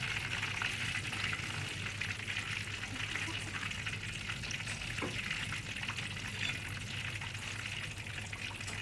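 Starch-coated pork chop deep-frying in hot oil in a wok: a steady, even sizzle and bubbling of the oil.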